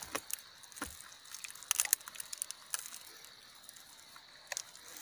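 A bare hand scraping loose soil and small roots out from around a tree's base: scattered crackling and scraping clicks, loudest in a quick cluster just before two seconds in.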